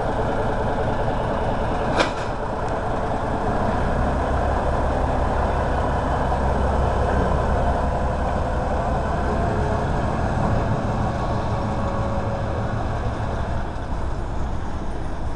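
Small diesel shunting locomotive's engine running. Its low drone grows deeper and stronger from about four seconds in until near the end, as if working harder. A single sharp knock sounds about two seconds in.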